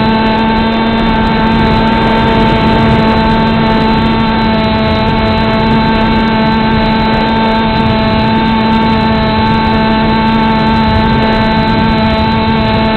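Electric motor and propeller of a Beta 1400 RC model plane running at steady throttle, a steady whine heard from the onboard camera over the rush of wind.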